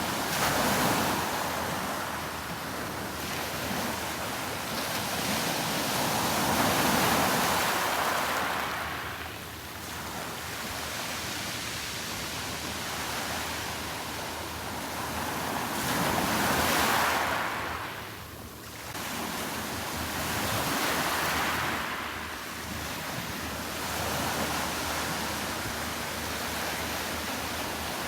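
Sea waves washing onto a beach, the surf swelling and falling away every few seconds, with short lulls about nine and eighteen seconds in.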